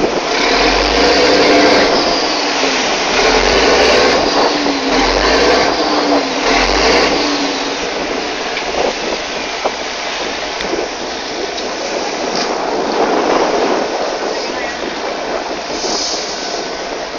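Wind buffeting the microphone over sea water rushing past a boat: a loud, steady rushing noise, with gusty low thumps of wind during the first several seconds.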